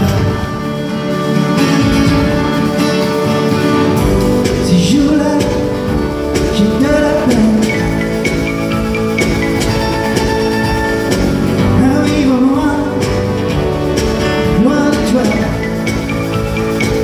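Live song: a man's singing voice in short phrases over an acoustic guitar and steady, full accompaniment of held chords.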